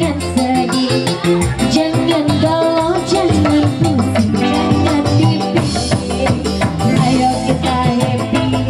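Live dangdut song played through a PA: a woman singing into a microphone over a band with keyboard and a steady beat.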